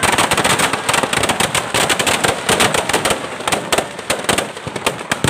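Firecrackers packed inside a burning Dussehra Ravana effigy going off in a rapid, unbroken string of bangs and crackles, many per second.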